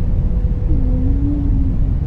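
Whale song: one long pitched call that slides down in pitch about two-thirds of a second in, then holds steady for about a second, over a steady deep underwater rumble.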